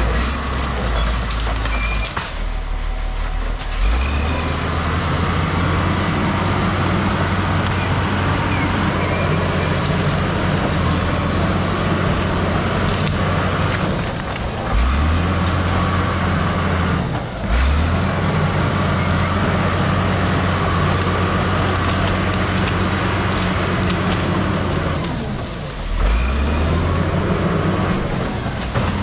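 Case crawler bulldozer's diesel engine running under load as the dozer pushes through brush and small trees. The engine note drops and picks back up several times.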